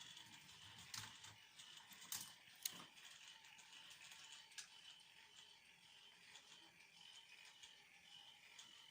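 Faint rattling of a K'nex chain lift running on its plug-in motor, with a few sharp plastic clicks in the first three seconds.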